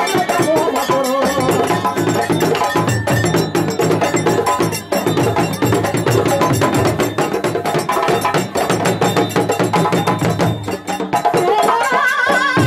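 Malian djembe and dundun drum ensemble playing a fast, dense dance rhythm, sharp hand slaps and stick strokes layered together. A voice sings over the drumming near the end.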